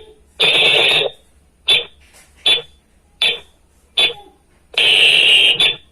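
Whistle blown in a signal pattern: a long blast, then four short blasts about three quarters of a second apart, then another long blast.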